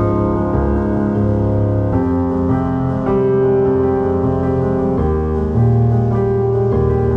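Background music: a slow piano-like keyboard piece whose held chords change every second or two.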